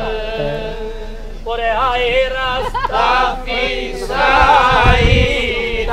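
Unaccompanied group singing of a slow Greek folk song: wavering, drawn-out melodic phrases over a steadier held note. A brief low rumble about five seconds in.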